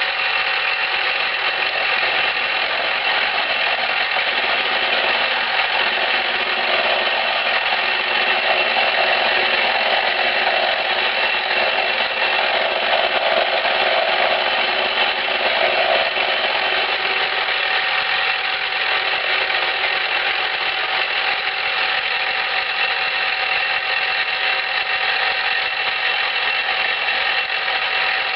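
Milling machine running steadily, its end mill taking light cuts off the end of a gib, a steady motor whine with cutting hiss that grows a little stronger in the middle.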